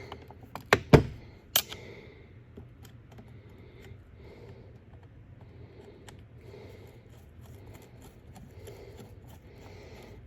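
Sharp clicks and taps of a screwdriver working the small cover screws on a disc sander's housing, the loudest just under a second in, then faint scattered ticks. Slow breathing close to the microphone swells and fades about every two seconds underneath.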